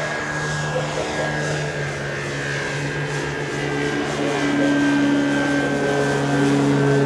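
Twin electric motors and propellers of an eLazair battery-powered ultralight in flight overhead: a steady propeller hum with several higher tones above it, growing a little louder after about four seconds.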